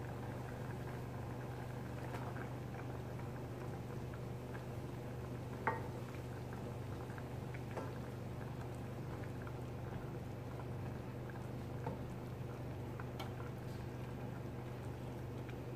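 Cream sauce simmering in a stainless steel pot while it is stirred with a wooden spoon: faint bubbling and soft scattered clicks, with one sharper knock about six seconds in, over a steady low hum.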